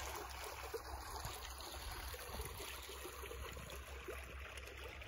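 Water from a spring flowing and trickling steadily, with a low steady rumble underneath.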